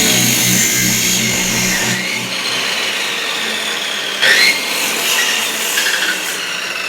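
A power tool running with a steady high hiss and whine. Its pitch rises and it briefly gets louder about four seconds in.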